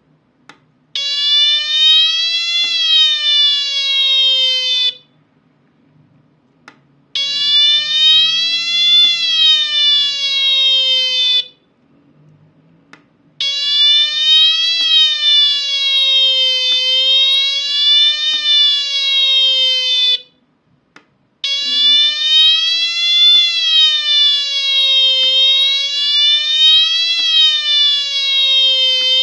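Home-built two-transistor siren (BC547 and TIP42 driving a small 8-ohm speaker) sounding a loud, buzzy wail that slowly rises and falls, about two seconds each way. It is switched on by its push button four times, each run starting with a click and stopping abruptly.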